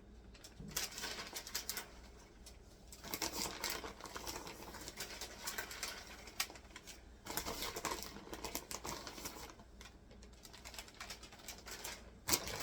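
Irregular rustling and light patter of shredded cheese being sprinkled by hand over chicken in a baking dish, coming in uneven spells with short pauses.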